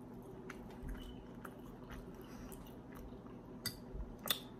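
Faint chewing of food with scattered small mouth clicks, and a few sharper clicks near the end.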